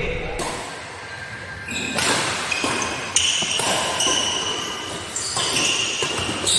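Badminton rally in an echoing hall: several sharp racket strikes on the shuttlecock, with short high squeaks of shoes on the court floor.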